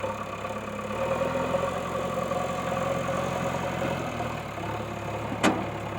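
A JCB machine's diesel engine idling steadily, its pitch stepping up slightly about a second in, with a single sharp click near the end.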